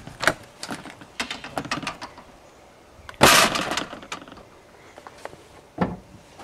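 Aluminium entry door of an Airstream motorhome being unlatched and opened: a run of latch clicks and knocks, then a loud clatter about three seconds in and a single thump near the end.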